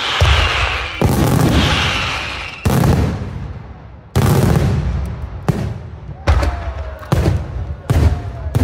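Daytime fireworks display: aerial shells bursting with loud booms, about one a second, each followed by a rolling echo that fades. During the first couple of seconds a dense crackling hiss from crackling stars runs under the bangs.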